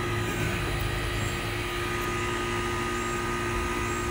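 Steady machine drone with a low hum and a few constant tones, holding level without change.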